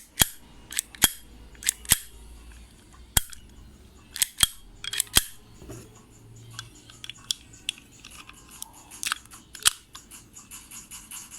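Sharp metallic clicks and snaps, a dozen or so at irregular spacing, from a Blow Mini 9 mm blank pistol being handled and stripped, with parts and the slide clicking into and out of place.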